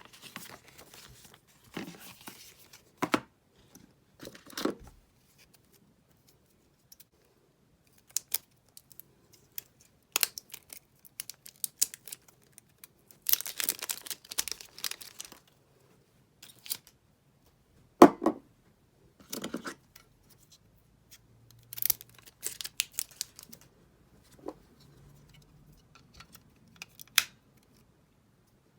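Unboxing of an iPad's retail box: wrapping torn and crinkled and cardboard handled, in short irregular rustles and clicks with pauses, a longer stretch of tearing about halfway through and a sharp knock of the box a little later.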